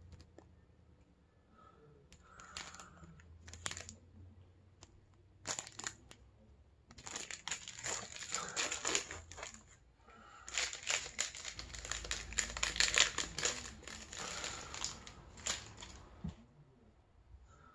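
Plastic wrapper of a Nerds Rope candy crinkling and tearing as it is pulled open by hand. A few scattered crinkles come first, then two long bouts of crinkling from about seven seconds in.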